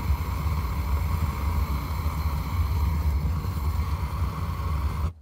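Gas burner firing a barrel raku kiln: a steady, loud roar with a deep rumble that cuts off abruptly near the end.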